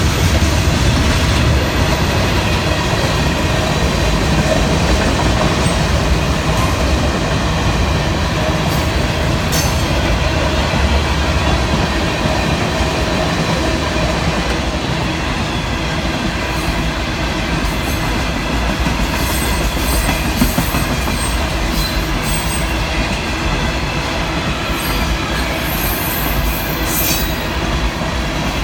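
Loaded freight cars of a long train rolling past at speed, a steady rumble and clatter of steel wheels on the rails, with a brief high wheel squeal now and then.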